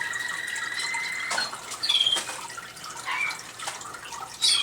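Caged canaries singing over the steady trickle of a small indoor water fountain: a long, even rolling trill that stops a little over a second in, then several short sharp chirps, the loudest about two seconds in and near the end.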